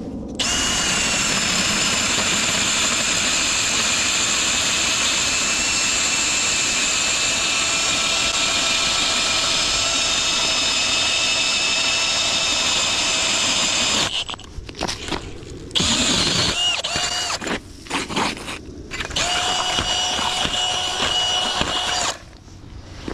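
Cordless drill spinning an ice auger through lake ice. It runs as a steady motor whine for about fourteen seconds, then comes in several short stop-start bursts, then one more steady run that cuts off shortly before the end.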